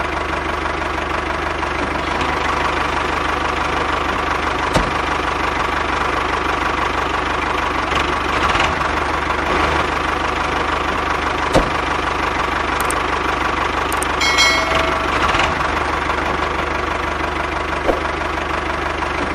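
Small electric motor and gear drive of a homemade model tractor running steadily, with a few sharp clicks and a brief squeak about two-thirds of the way through.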